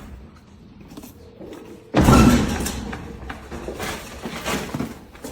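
A sudden heavy slam about two seconds in, dying away over about a second, after a quiet stretch.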